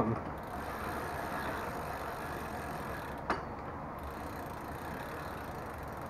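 Bicycle chain running steadily over the rear cassette and derailleur pulleys as the rear wheel spins, with one sharp click a little over three seconds in. The chain is an old one due for replacement.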